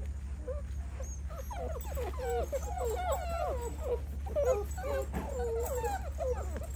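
A litter of eight-week-old American bully puppies whining and yelping together: many short, overlapping, wavering cries that grow busier about a second and a half in.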